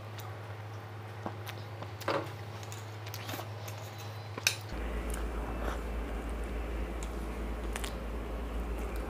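Stainless steel plates and a small steel bowl being handled on a table, giving a few scattered clinks and knocks, the loudest about four and a half seconds in.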